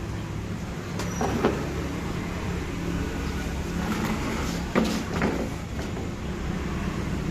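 An engine running steadily with a low hum, with short, sudden louder noises about a second in and again about five seconds in.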